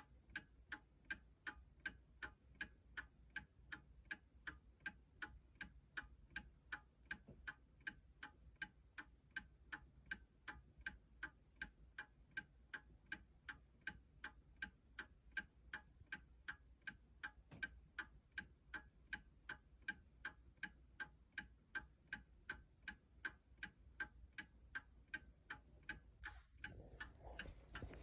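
Seth Thomas Sonora chime clock ticking steadily, an even run of sharp ticks about two to three a second. A low rushing noise comes in near the end.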